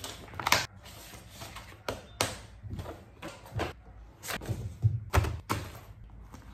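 Sheets of paper rustling and a plastic document folder being handled on a desk, with several light knocks as things are set down.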